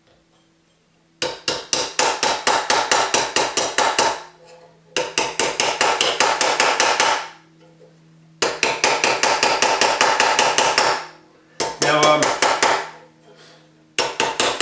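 A plastic-headed forming hammer strikes a reticulated silver cuff held on a steel anticlastic stake, beginning the first course of an anticlastic curve. The blows are rapid and even, about seven a second, in five runs of a few seconds each with short pauses between them. Each blow leaves a short metallic ring.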